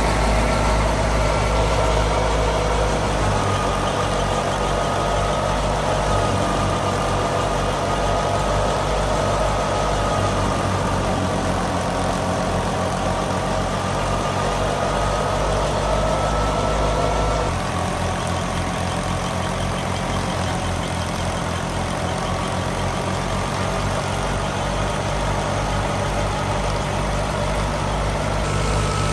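Fiat 480 tractor's diesel engine running steadily with an even low throb, with a steady mechanical whine over it; the sound drops slightly a little over halfway through.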